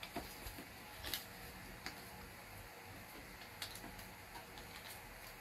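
Small squares of paper being folded and creased by hand: a scattering of light, irregular paper clicks and crinkles over a faint steady hiss.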